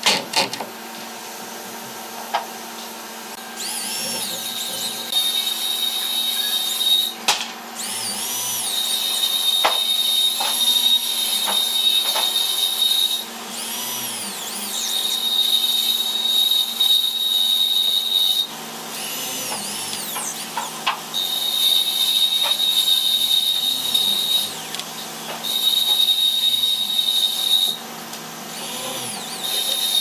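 Corded electric drill run in about six bursts of two to four seconds, its motor whining up to speed and stopping each time the trigger is released, as it works into a wooden panel. A couple of sharp knocks sound near the start and about seven seconds in.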